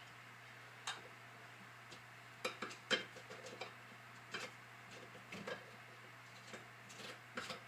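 Faint, irregular clicks and taps of a spoon and small dishes being handled while flour and milk are mixed by hand, with a faint low hum underneath.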